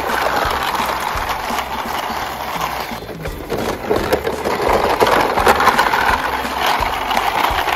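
Plastic toy cars rolling over rough dirt and grass: a continuous crunching, rattling noise from the wheels and bodies on the uneven ground.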